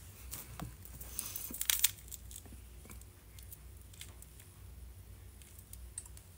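Handling noise: rustling and crinkling, loudest in a short burst about a second and a half in, with scattered small clicks and taps around it.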